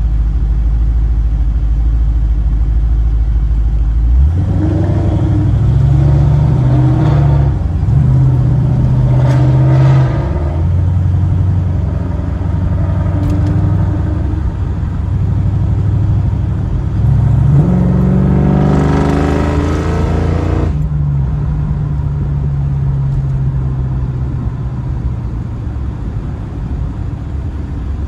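Fox-body Mustang GT's 5.0 V8 through an aftermarket H-pipe and Magnaflow cat-back exhaust, heard from inside the cabin. It idles, then about four seconds in pulls away hard, revving up through a gear change and settling into a cruise. Near the three-quarter mark it revs up hard once more for a few seconds, then drops back off.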